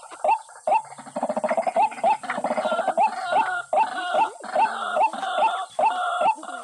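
White-breasted waterhen calling: loud, short, hooked calls repeated about twice a second, turning busier and overlapping, as from more than one bird, from about a second in.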